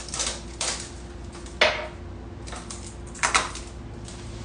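Hard objects being handled, a series of sharp clicks and knocks, the loudest about a second and a half in, over a faint steady hum.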